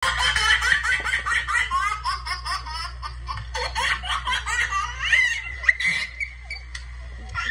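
A man laughing loudly and theatrically, a rapid run of high 'ha-ha-ha' notes about five a second, which thins out after about three and a half seconds into a single rising cry. A low steady hum runs underneath.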